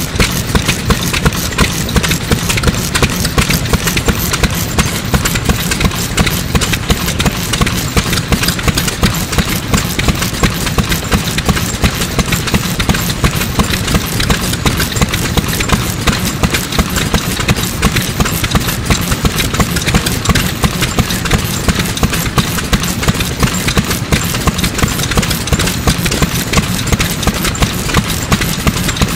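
Single-cylinder, hopper-cooled STRONG Type A 2.5 hp stationary kerosene engine running steadily, its exhaust beating in an even rhythm.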